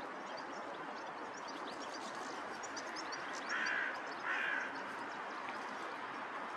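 Hooded crow giving two caws, each about half a second long and about a second apart, over a steady background hiss with faint high chirps.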